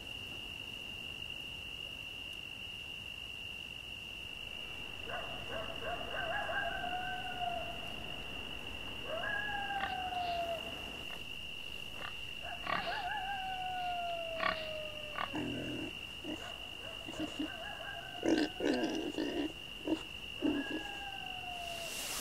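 Night ambience in a wooded swamp: a steady high-pitched insect drone, joined from about five seconds in by a series of long, falling animal calls that waver at their start, then shorter, choppier lower calls near the end.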